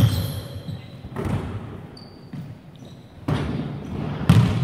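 A basketball thudding on a wooden sports-hall floor a few times at an uneven pace, each bounce echoing in the large hall; the loudest thud comes near the end.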